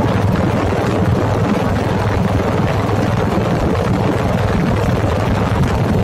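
Steady, loud rumble of a moving road vehicle: engine drone with road and wind noise, unchanging throughout.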